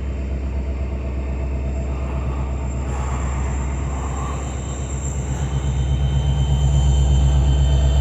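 EMD 710G 16-cylinder prime mover of a Norfolk Southern SD70ACe locomotive humming heavily under load as it shoves a train of cars, growing louder about two-thirds of the way through.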